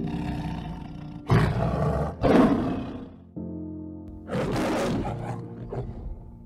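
Male lion giving two loud rough roaring calls, the first about a second in and the longer and louder of the two, the second past the middle, over background music.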